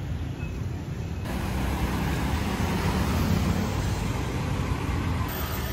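Street traffic noise: a steady low rumble of passing cars, changing abruptly a little over a second in and slightly louder after.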